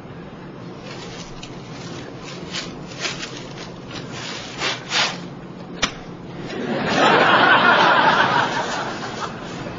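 Short breaths blown into a paper bag, then a single sharp crack a little before halfway, the bag bursting. This is followed by studio audience laughter, the loudest sound, which swells and fades near the end.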